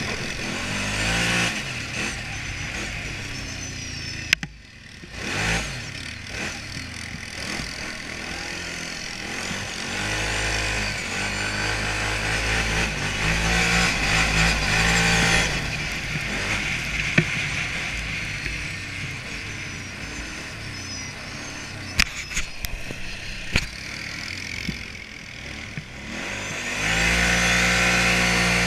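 ATV engine being ridden, revving up and easing off several times with the throttle, loudest about 13 to 15 seconds in and again near the end. A few sharp knocks cut through, one about four seconds in and two more past the twenty-second mark.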